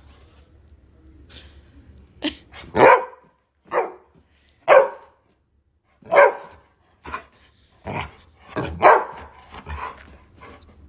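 A dog barking: about eight short barks at uneven intervals, starting about two seconds in.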